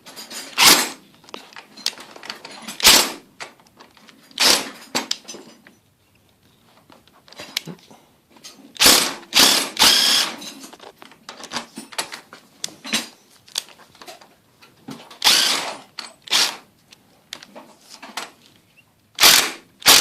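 Power drill driving screws into the garage door in short, stop-start bursts, about a dozen brief runs of the motor with pauses between.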